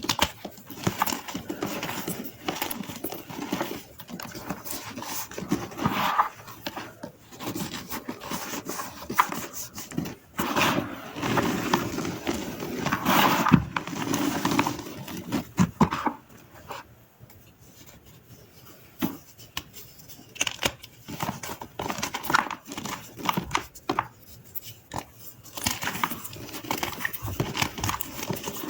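Dry gym chalk crunched and crumbled, with irregular crisp crackling and small clicks, quieter for a few seconds a little past the middle.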